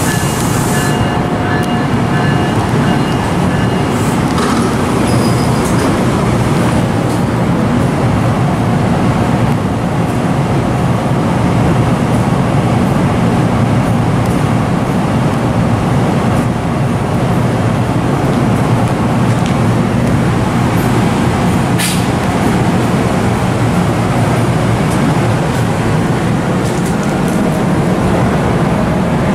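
Train passing close by on the track: a loud, steady rumble of wheels on rail that holds for the whole stretch, with a faint thin whine over the first few seconds.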